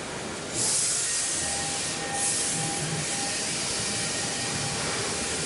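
Compressed-air hiss from a CNC router's automatic tool-change spindle, starting suddenly about half a second in. It breaks off briefly near two seconds, comes back in a second blast, then keeps going a little softer.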